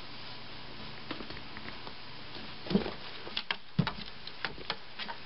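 A cat's paws and claws tapping and scratching at the bottom of a wooden dresser drawer: irregular light clicks and knocks, with two louder thumps about three and four seconds in.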